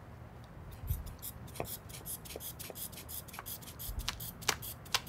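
Manual blood-pressure cuff worked by hand: short puffs of air from the rubber bulb and its valve, a few a second, starting about a second in, with light handling knocks.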